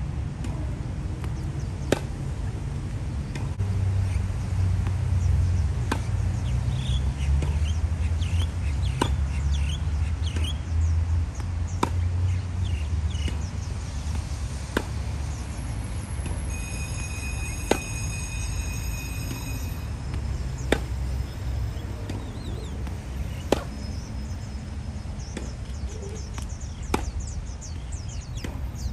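Tennis ball struck by a racket about every three seconds in a steady rally, each hit a sharp crack over a continuous low rumble. Birds chirp in the background.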